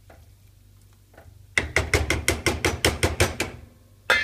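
A spoon knocking against a steel saucepan about a dozen times in quick succession while stirring risotto, then a metal lid clattering onto the pot near the end.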